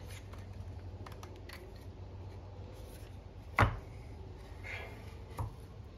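Antique wooden plough plane handled on a wooden workbench: one sharp knock about three and a half seconds in, a lighter knock near the end, and small clicks and rustles of handling between them.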